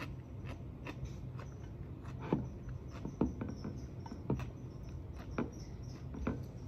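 Crunchy food being chewed close to the microphone: about five sharp crunches at irregular spacing, roughly one a second from about two seconds in, with fainter ticks between, over a steady low hum.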